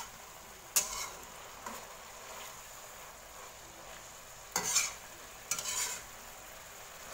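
Oyster mushrooms and green chillies sizzling in a wok while a slotted spatula scrapes and tosses them, with sharp scraping strokes about a second in and again between four and six seconds in.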